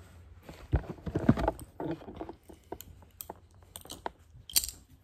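Handling noise as the recording device moves against a fabric jacket: irregular rustling and bumps, the loudest about a second in, with a few sharp clicks later on.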